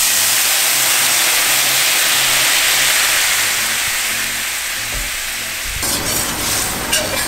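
Dry sherry hitting a hot stainless steel frying pan of browned onions and sizzling loudly as it deglazes the pan, the hiss starting suddenly and slowly dying down. About six seconds in, the sizzle turns into a busier crackle with the clatter of the pan being stirred.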